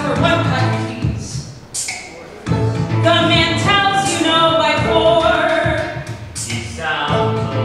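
Live electronic opera music: singing over violin and an electronic backing with a steady low tone, with a short lull about two seconds in.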